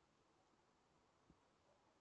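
Near silence, with one faint low thump a little past halfway.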